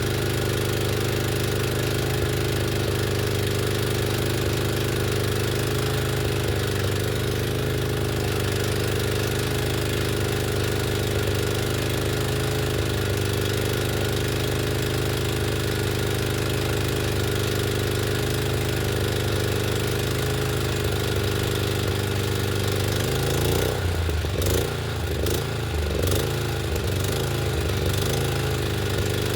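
The Etesia Pro 46 mower's petrol engine runs steadily at a constant speed. About three-quarters of the way through, its note wavers for a few seconds, with several sharp clacks.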